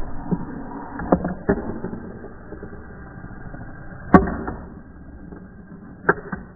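A homemade electric Gauss accelerator launching and catching its metal ball: a run of sharp metallic clicks and knocks at uneven intervals, a pair about a second in, the loudest about four seconds in and another pair near the end.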